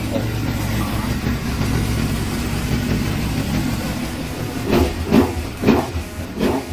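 Motorcycle engine idling steadily, then three or four short, loud bursts near the end.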